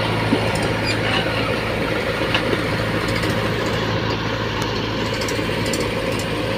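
Diesel engines of a Mahindra tractor and a JCB 3DX backhoe loader idling steadily, an even low throb.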